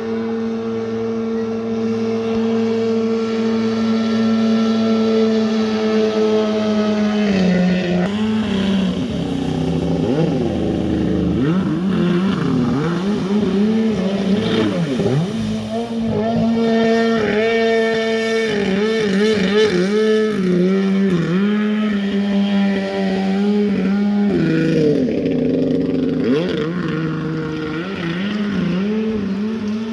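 Two-stroke 25 hp outboard motor with an aftermarket sport exhaust running loud: a steady note for the first several seconds, then repeatedly rising and falling in pitch as the revs change from about seven seconds in.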